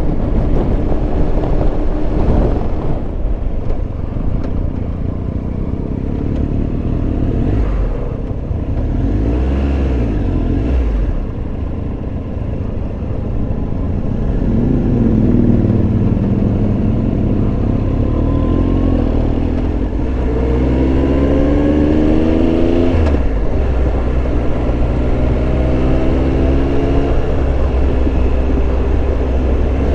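Motorcycle engine under way over a steady low rumble of wind and road noise, the revs rising and falling. Near the middle the engine pulls up steadily, drops sharply as if through a gear change, then holds an even note.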